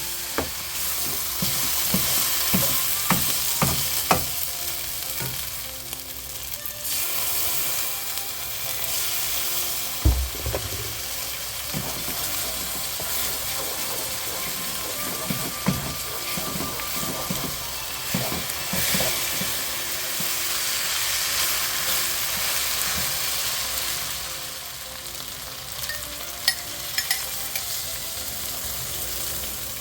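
Food sizzling in a frying pan while being stirred, with the spatula clicking and scraping against the pan throughout and a dull thump about ten seconds in.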